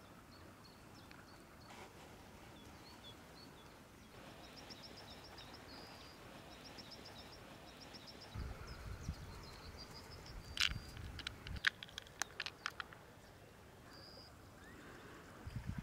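Small birds chirping, with one quick repeated trill early on. Partway through comes a rapid run of sharp clicks from handling small plastic fishing tackle.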